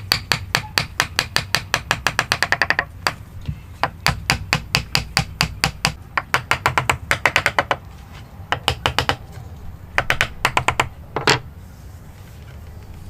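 Hammer tapping a chisel into wood in quick runs of about seven sharp blows a second, with short pauses between runs and one heavier blow near the end.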